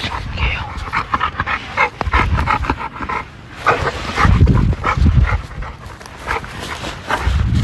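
A dog panting rapidly, with a heavy low rumble that comes and goes and is loudest about halfway through.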